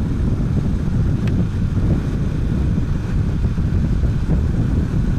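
Bajaj Pulsar 220 motorcycle's single-cylinder engine running steadily while riding, mixed with steady wind rumble on the microphone.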